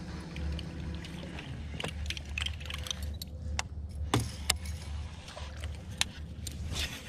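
Baitcasting rod and reel being cast and worked: a few sharp clicks from the reel and a short swish of the cast about four seconds in, over a steady low hum from the boat.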